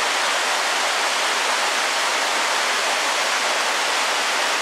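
Steady rushing of a stream pouring over a small rocky cascade into a pool.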